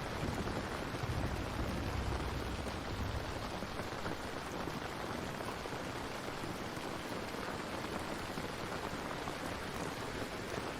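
Steady heavy rainfall, an even hiss of drops, with a low rumble swelling about a second in and fading a couple of seconds later.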